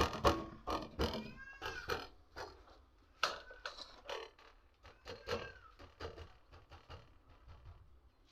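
An animal's short calls, several times over, each rising and falling in pitch, amid scattered clicks and knocks.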